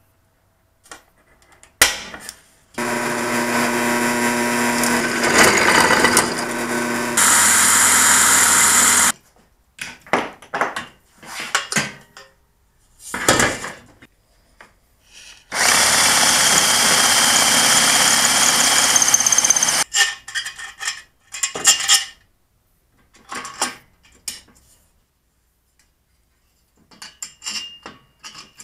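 Electric drill running in two long bursts, boring into steel tube for the frame's screws; its pitch changes partway through the first burst. Short clicks and knocks of metal parts being handled come between and after.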